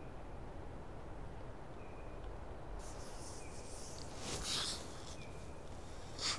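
Quiet woodland ambience, a faint steady hiss and rumble, with a small bird's short chirp repeating about every second and a half. A brief soft noise swells up about four and a half seconds in.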